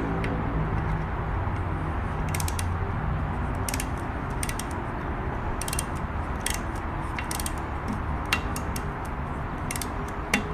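Small, irregular metal clicks and taps of a screwdriver and parts against the metal of a Kenmore 1301 sewing machine, as its needle bar bracket and set screws are fitted, over a steady background hiss.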